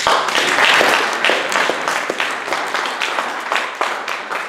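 Audience applauding, many hands clapping; it starts suddenly, is loudest in the first second and slowly thins out.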